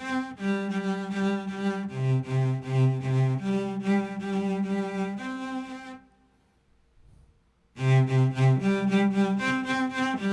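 Erhu sound from a keyboard patch playing a single-line practice exercise: steady held notes alternating with quick repeated notes, about four a second, for speed control. It stops about six seconds in, then resumes with rapid repeated notes.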